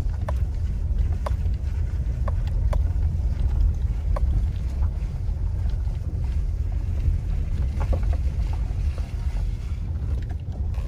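In-cabin noise of a Subaru SUV rolling slowly over a rough dirt road: a steady low rumble of tyres and drivetrain, with a light tick or knock now and then.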